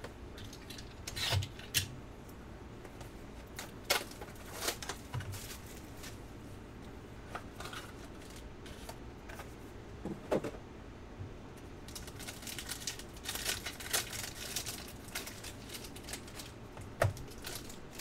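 Foil-wrapped trading-card pack and cards being handled by hand: crinkling and rustling of the foil with several sharp clicks and taps. The crinkling is densest from about twelve to fifteen seconds in.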